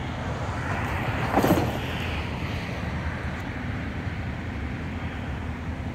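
Steady rumble of road traffic, with a brief louder swell about a second and a half in.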